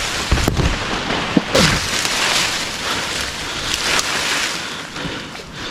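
Dry palm fronds rustling and crackling as someone works among them in the crown of a palm, with a few sharp knocks in the first second and a half.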